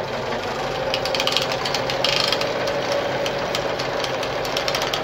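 Veritas Automatic 8014/3 semi-industrial sewing machine running steadily at speed to wind a bobbin, a continuous mechanical run with fast fine ticking from its moving parts.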